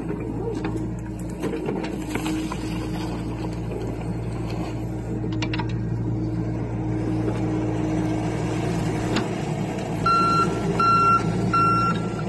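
John Deere 60G compact excavator's diesel engine running steadily while the bucket works the soil, with a few light knocks. Near the end its travel alarm beeps three times as the machine tracks back.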